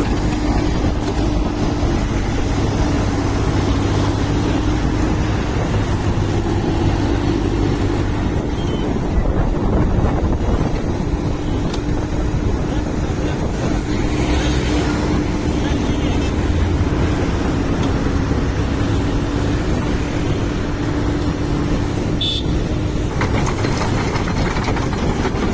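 An engine running steadily at one constant pitch, with a low rumble under it.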